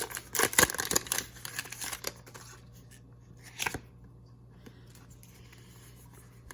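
Foil booster pack wrapper being torn open and crinkled for the first two seconds or so, then a single light tap about halfway through, followed by only a faint low hum.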